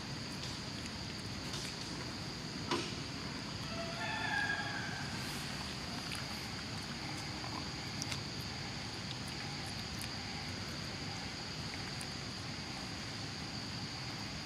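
Steady, high-pitched drone of insects. A sharp click comes a little under three seconds in, and a short pitched call about four seconds in.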